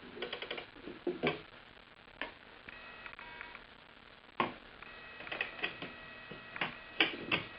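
Soviet submarine clock being wound and closed: a quick run of ratchet clicks from the winding key at the start, then several sharp knocks as the hinged glass bezel is swung shut and latched. A steady high tone is heard briefly a little under three seconds in and again from about five seconds on.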